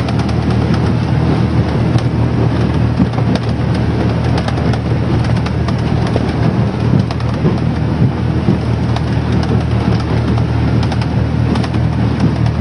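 Boat engine running steadily under way, heard inside the small cab of an aluminum river boat, with the hull slapping and banging on wind-driven chop in a constant din of small knocks.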